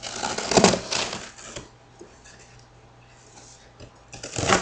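Scissors cutting through the packing tape and cardboard of a small box: a crunchy rasping for about the first second and a half, then quiet, then a second brief burst near the end.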